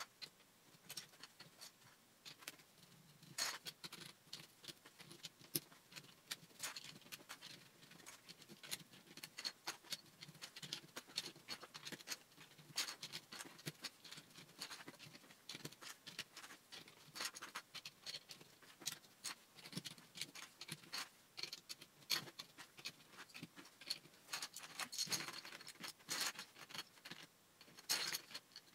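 Plastic Lego bricks clicking and clattering as they are handled and pressed together: a continuous run of small, irregular clicks, with a few louder snaps.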